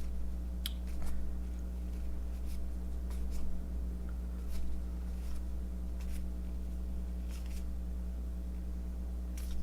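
Baseball card packs and cards being handled: faint, scattered soft flicks and rustles, spaced out with no steady rhythm.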